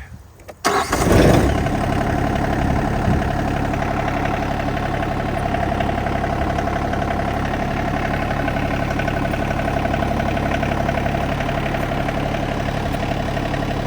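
Rural King RK24 compact tractor's diesel engine starting after a brief crank about a second in, then idling steadily.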